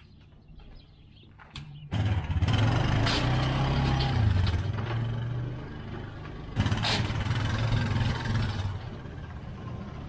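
A vehicle engine starts suddenly about two seconds in and runs at a low, steady pitch. It surges again about two-thirds of the way through and settles lower near the end.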